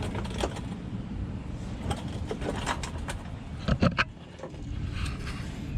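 A steady low rumble like a vehicle engine running, with several sharp clicks and knocks around the middle.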